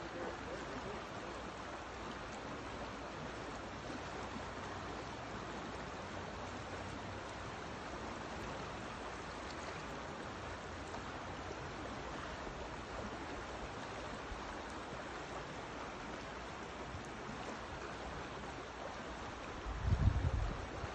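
Fast, shallow river water rushing steadily, an even hiss of flowing current. A brief low rumble comes about a second before the end.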